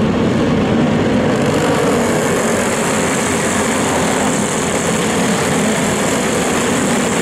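Go-kart engines running at racing speed, a loud, steady engine drone.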